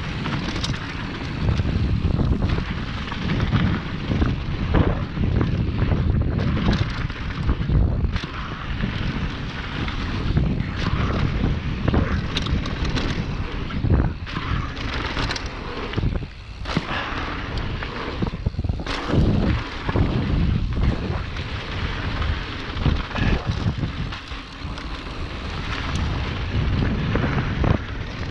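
Wind rumbling across the microphone of a mountain bike descending a dirt and gravel trail, with the tyres hissing over the loose surface and frequent sharp knocks and rattles from the bike over bumps.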